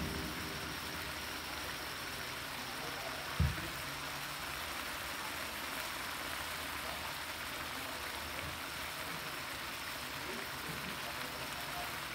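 Pinakbet sauce simmering in an aluminium wok, a steady soft bubbling hiss. One dull thump about three and a half seconds in.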